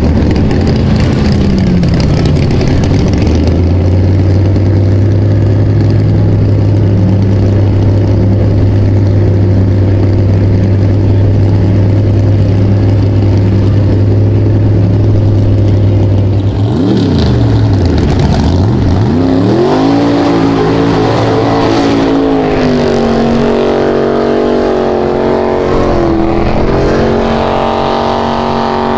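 Mega truck engine held at high revs, a steady loud drone as the truck pushes through a mud pit. About halfway through the revs drop sharply and climb straight back, then keep rising and falling.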